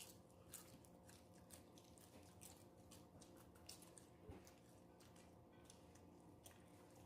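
Faint chewing of nachos: soft irregular crunches of tortilla chips and mouth clicks, several a second.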